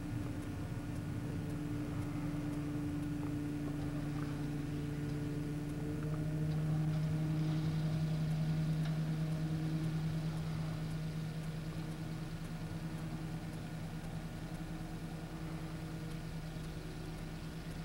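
Riding lawn mower engine running steadily, heard from a distance, growing somewhat louder about six seconds in and easing back after about ten seconds.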